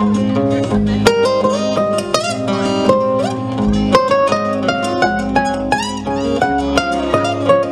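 Acoustic guitars playing an instrumental break: a picked lead melody with note slides over strummed chords and bass notes.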